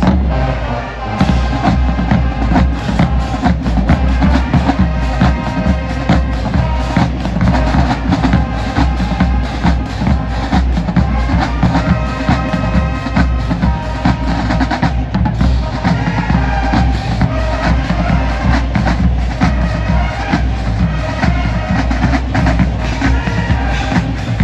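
Marching band playing: horns holding chords over heavy drumming with a steady bass-drum beat.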